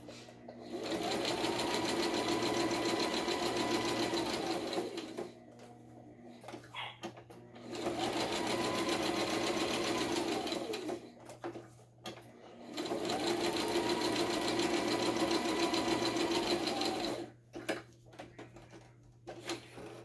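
Electric sewing machine stitching in three runs of a few seconds each, the motor speeding up at the start of each run and slowing at the end, with short clicks in the pauses between runs.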